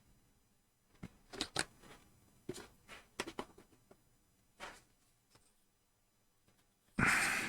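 Small scattered clicks and rustles of close handling, such as scissors and tweezers working a piece of tea-bag paper. Near the end comes one short, loud rush of noise.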